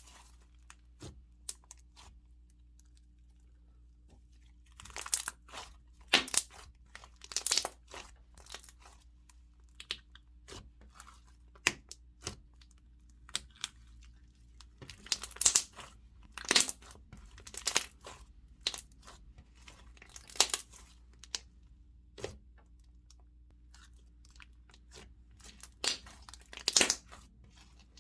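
Slime being squished, poked and stretched by hand, giving irregular clusters of sharp crackles and air-bubble pops with short quiet gaps between them.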